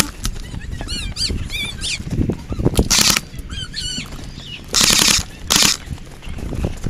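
Footsteps crunching on landscape gravel, with several louder crunches around the middle. A few quick, high chirping calls come early on.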